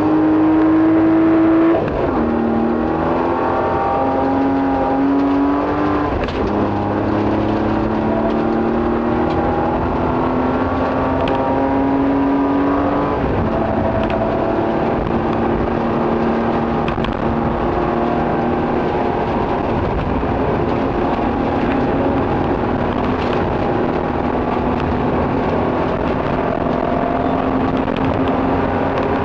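Nissan Skyline rally car's engine heard from inside the car, pulling hard on a gravel stage: the revs climb and drop sharply at upshifts about two, six and thirteen seconds in, then hold fairly steady. Constant road noise runs underneath, with a few sharp ticks.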